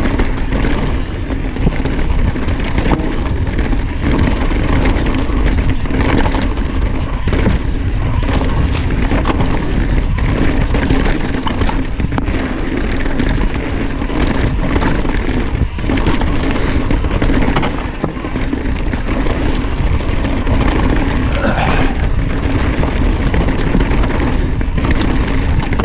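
A mountain bike running fast downhill on a dirt singletrack: wind buffeting the action-camera microphone and knobby tyres rolling on dirt, with frequent short clatters and knocks as the bike hits bumps and roots.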